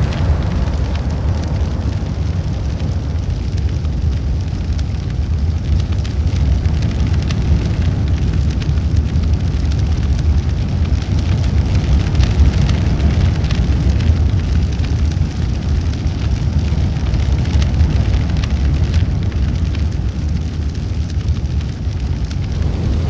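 Large fire burning, growing: a steady deep rumble of flames with dense fine crackling throughout.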